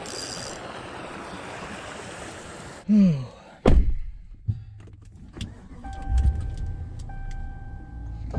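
Outdoor ambience, then a short creak and a pickup truck door slamming shut about four seconds in. After that comes the quieter inside of the cab, with small clicks and handling noises and a steady tone.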